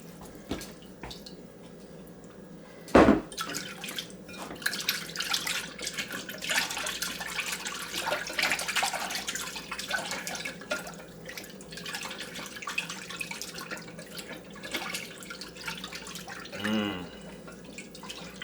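Liquid, most likely vinegar and oil for a marinade, being poured into a bowl with uneven splashing. A single sharp knock comes about three seconds in, and a short wavering glug comes near the end.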